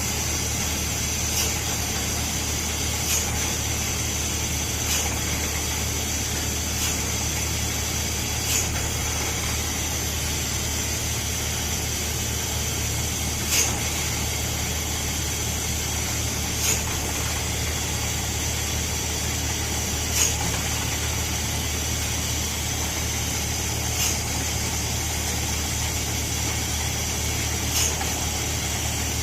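Borewell drilling rig running steadily: a low engine drone with a constant hiss over it, and short sharp clicks every two to four seconds.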